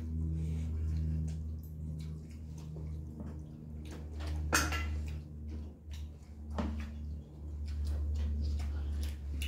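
Close-up eating sounds: wet chewing and lip smacks, with fingers working rice on a steel plate, over a steady low hum. A sharper click about halfway through and another about two seconds later.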